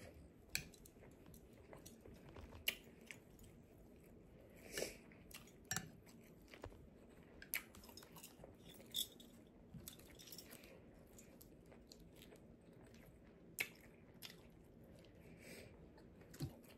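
Quiet close-up chewing of shrimp fried rice, with scattered soft clicks and mouth smacks.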